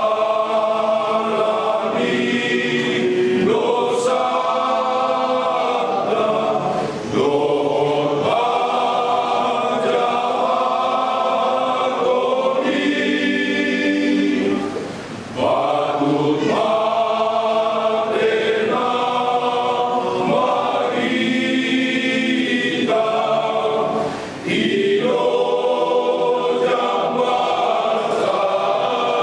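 Men's choir singing together in long held phrases, with short pauses for breath about seven, fifteen and twenty-four seconds in.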